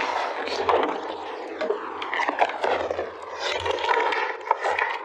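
A clear plastic pet-pen panel scraping and rattling on a tile floor as a rabbit pushes at it, with many short knocks.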